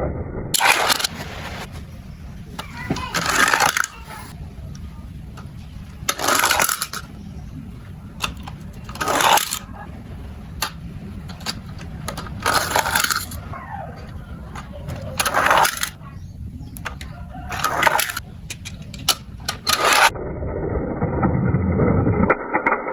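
Plastic toys and their packaging being handled: short crinkling and rustling bursts every two to three seconds, with small clicks and clatters of hard plastic between them.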